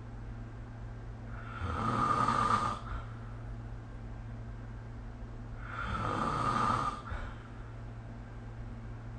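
A sleeping person snoring: two snores about four seconds apart, each lasting a little over a second, over a steady low hum.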